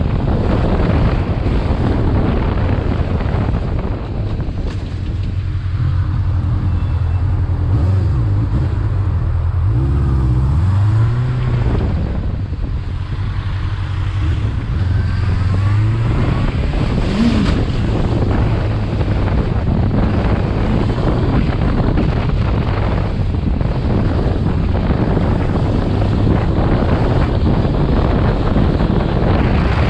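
Honda CBF motorcycle engine running under way, with heavy wind noise buffeting the microphone. The engine note rises and falls through gear changes about ten seconds in, with a short rev blip a few seconds later.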